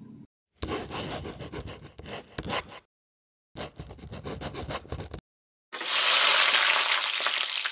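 Sound effect of a pen scratching across paper in two stretches of quick writing strokes, then about two seconds of a louder, even hiss.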